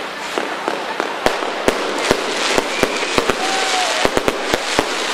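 Finale barrage of a professional firework display: aerial shells bursting in a rapid, irregular string of more than a dozen sharp bangs over a steady hiss.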